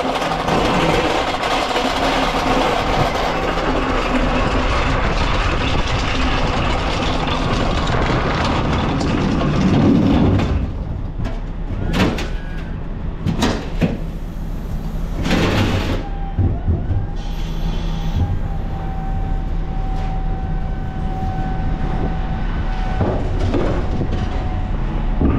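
A heavy vehicle's engine running steadily. From about halfway through come a few sharp knocks, followed by a steady whine lasting several seconds.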